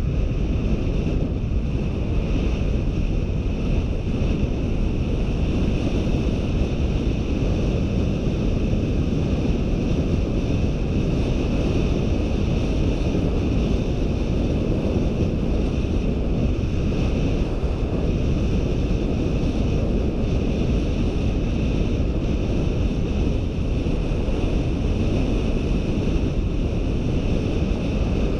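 Steady wind rushing and buffeting over a GoPro's microphone during a fast downhill bicycle descent, a constant deep rumble with a steady higher hiss above it.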